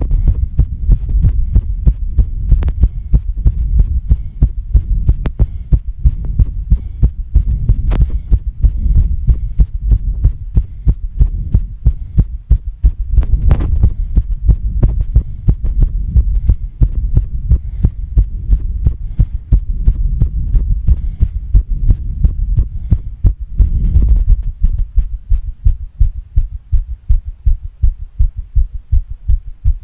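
A woman's fast heartbeat thudding in a quick, steady rhythm, with heavy breathing under it that fades in the last few seconds.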